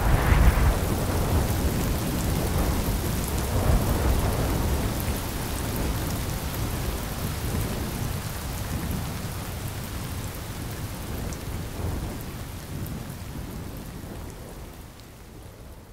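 Steady rain with rolls of low thunder, the rumbling strongest in the first few seconds, the whole gradually fading out.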